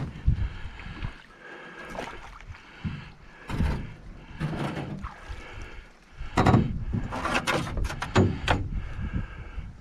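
Paddling an aluminum canoe: irregular paddle strokes splashing in the water, with knocks of the paddle against the metal hull, coming thicker and louder in the second half.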